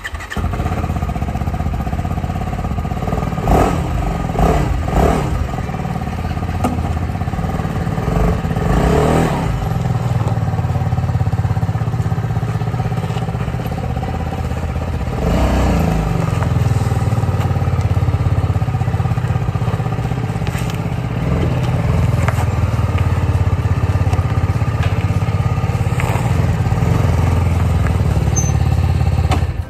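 TVS Apache RR 310 sport bike's single-cylinder engine starting up and then idling, with a few short blips of the throttle in the first sixteen seconds.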